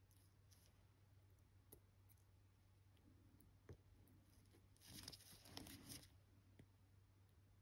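Near silence with a low steady hum; a few faint ticks and a brief soft rustle about five seconds in, from small watch parts being handled during reassembly.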